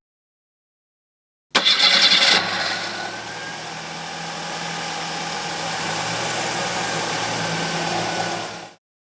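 Car engine starting: a short, loud burst as it is cranked and catches about a second and a half in, then it settles into a steady idle for about six seconds and cuts off near the end.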